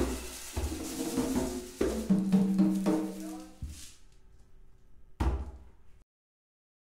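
Hand drums struck one stroke at a time in a sparse, loose pattern, each hit ringing with a clear pitch. A pause follows, then one last stroke about five seconds in, and the sound cuts to complete silence about a second later.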